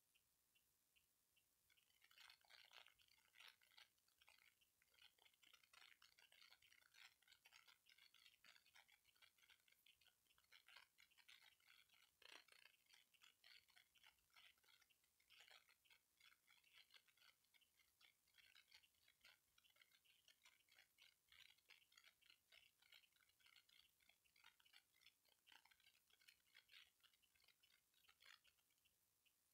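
Near silence with faint, rapid, irregular clicking that starts about two seconds in and stops shortly before the end, with a few evenly spaced faint ticks on either side.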